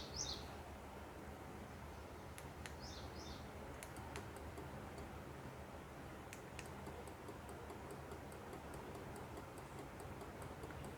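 Faint, scattered high ticks and clicks, growing more frequent in the second half, with a pair of short high falling chirps at the very start and another pair about three seconds in.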